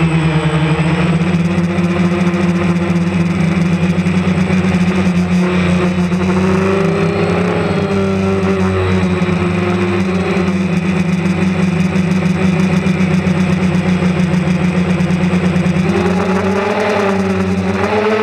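DJI Phantom quadcopter's motors and propellers buzzing steadily, heard up close from the camera mounted on the drone, the whine rising and falling in pitch a few times as the motors adjust speed in flight.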